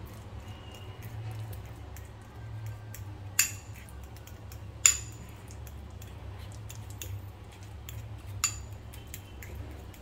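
Metal fork mashing ripe banana in a small bowl: soft scraping with faint ticks, and three sharper clinks as the fork strikes the bowl. A steady low hum runs underneath.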